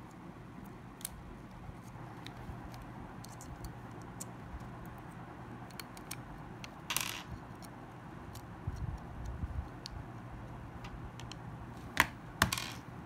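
Small scattered clicks and taps of a smartphone's plastic and metal parts and small tools being handled during disassembly, with a short scrape about seven seconds in and two sharper, louder clicks near the end, over a faint low hum.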